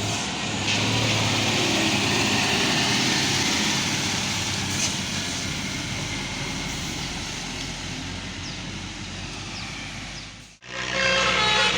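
A bus driving past, its engine and tyre noise a steady rush that slowly fades. After a sudden cut near the end, a bus's multi-tone telolet horn starts playing its tune.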